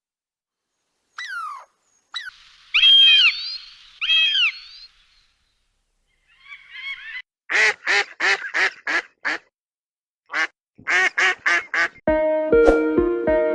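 Duck quacking: a few separate calls, then quick runs of short quacks. Music starts near the end.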